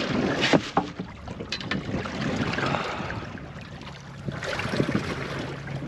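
Wind buffeting the microphone on a small fishing boat, with a few sharp knocks in the first couple of seconds. A low steady hum comes in about four seconds in.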